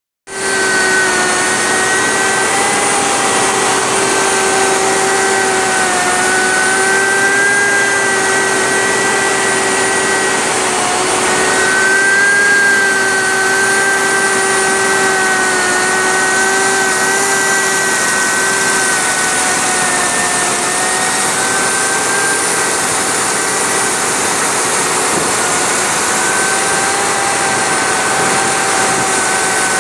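Portable crankshaft grinding machine running on a main journal of a MAN marine diesel crankshaft, grinding the seized journal down to undersize: a steady machine noise with a whine that wavers slightly in pitch.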